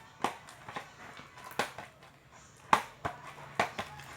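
Homemade slime of white glue and liquid laundry detergent being mixed in a bowl: irregular sharp clicks and smacks, about seven in four seconds.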